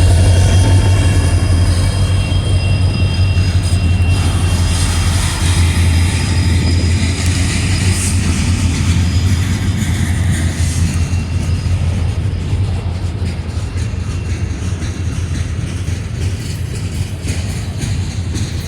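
A freight train rolling past, with a steady low diesel drone and railcar noise that slowly fades.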